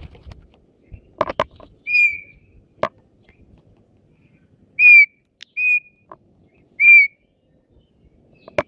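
Asian pied starling (jalak suren) giving four short, clear whistled notes, each sliding slightly down in pitch, with a few sharp clicks in between.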